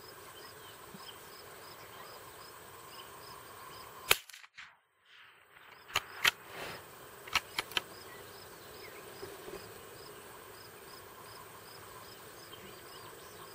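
Five sharp gunshots fired at an exploding target: one about four seconds in, then two quick pairs between six and eight seconds in. None of them sets the target off. Insects chirp steadily in the background, about twice a second.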